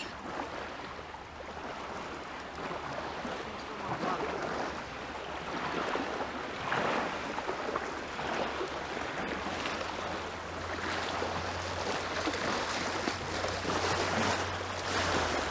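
Shallow water sloshing and splashing around a wader's legs, in uneven swells, with small waves washing onto the sand at the water's edge.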